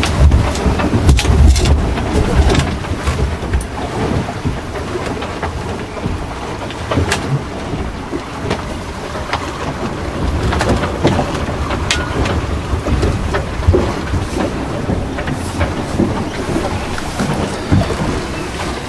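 A sailboat under sail in rough water: wind buffeting the microphone with a heavy low rumble, loudest in the first couple of seconds, over rushing water noise, with scattered knocks and clatter from gear on board.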